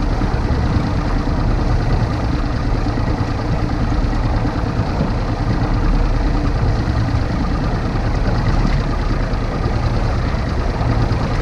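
Mercury Optimax two-stroke outboard motor idling steadily.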